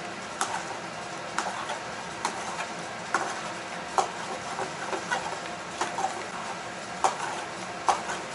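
Tongs clicking and knocking against a frying pan as spaghetti in tomato sauce is tossed and mixed, irregularly about once a second, over a steady hiss.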